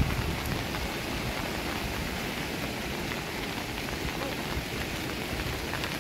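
Steady hiss of water, heard as an even noise that does not change.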